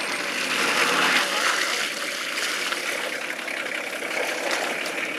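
Off-road vehicle's engine running steadily, a rough, noisy engine sound without sharp changes in revs.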